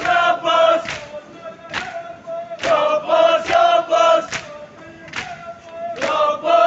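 Crowd of male mourners chanting a Shia mourning lament in unison, in repeated phrases. Sharp slaps of rhythmic chest-beating (matam) come about once a second.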